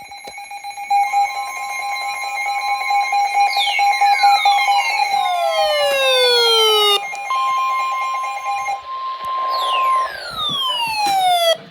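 Emergency Alert System attention signal announcing a severe thunderstorm warning: two steady high tones sounding together, with a series of falling whistle-like sweeps layered over them from about three and a half seconds in. Near seven seconds the pair cuts out briefly and a single steady tone carries on, with more falling sweeps near the end.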